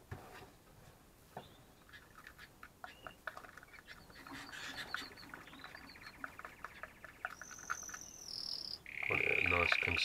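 Metal spoon clicking and scraping against a plastic tub as hand-rearing food is stirred. Canaries sing rolling trills in the background from about four seconds in, louder in the last second.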